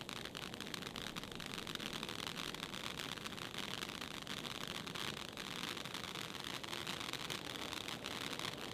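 Celtic Fireworks Glacier Rising conic fountain burning: a steady hiss of spraying sparks with fine crackling.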